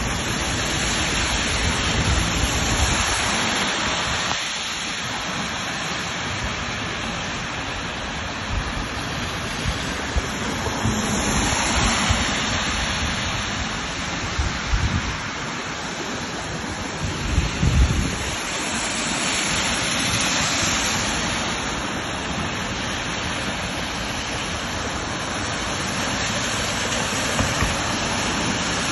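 Steady rushing noise of floodwater running across a street, mixed with rain. Low gusts of wind buffet the microphone a few times, the strongest near the middle.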